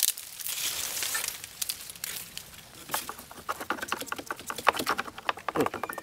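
Dry, rotten wood of a hollow tree stump crackling and crumbling. From about three seconds in comes a quick run of small taps and scrapes as a thin rod is worked down into the stump.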